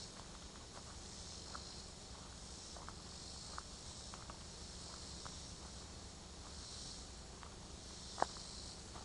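A high-pitched insect chorus in the trees, swelling and fading in waves, with scattered light crunches of footsteps on a dry woodland trail. One sharper crack, likely a twig snapping underfoot, comes near the end.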